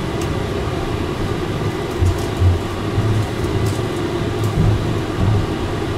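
Tram running along the track: a steady rumble with irregular low knocks and faint rattles.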